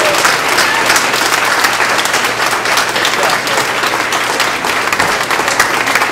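Audience applauding: many people clapping together, dense and steady.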